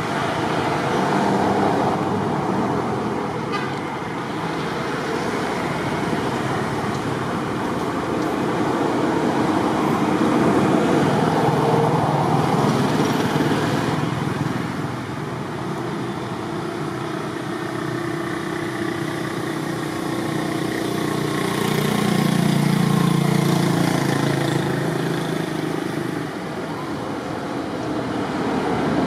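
Road traffic going by: a steady wash of vehicle noise that swells twice as engines pass.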